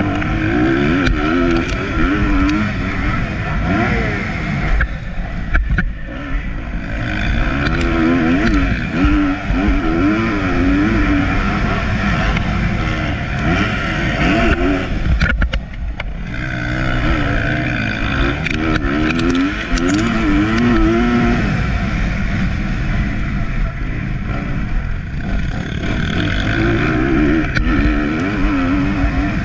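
Motocross bike engine heard on board while racing, revving hard up and down through the gears, with brief throttle cuts about five and fifteen seconds in.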